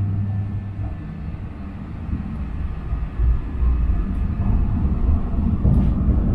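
Tram running along its rails, heard from inside the passenger car: a low rumble of wheels and motors that eases off slightly, then grows louder from about three seconds in.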